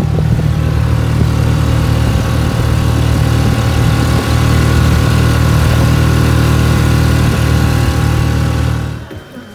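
Honda BF5 four-stroke outboard motor running steadily at cruising speed, driving a small inflatable boat. It cuts off abruptly near the end.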